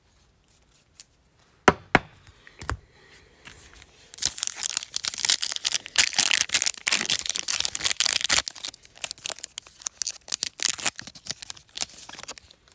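A foil trading-card pack wrapper being torn open and crinkled by hand: a few sharp clicks at first, then a dense stretch of tearing and crackling, thinning to scattered crinkles near the end.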